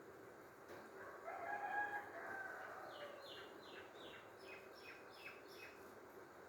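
Faint bird calls: one long call lasting about a second and a half, then a quick run of about nine short, high, falling notes, over a steady background hiss.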